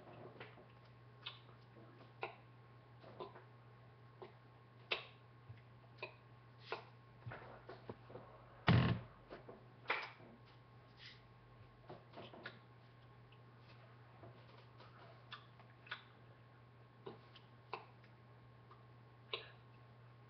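Hands tapping and brushing against each other and against clothing while signing: scattered, irregular clicks and taps, with one louder knock about nine seconds in, over a steady low hum.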